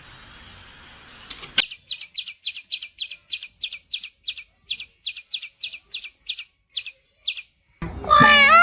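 A bird chirping: short high chirps repeated about three times a second for some six seconds, then near the end louder calls that rise and fall in pitch.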